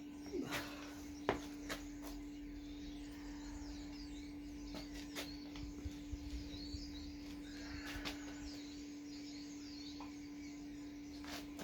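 Birds twittering over a steady low hum, with a few sharp clicks or knocks, the loudest about a second in.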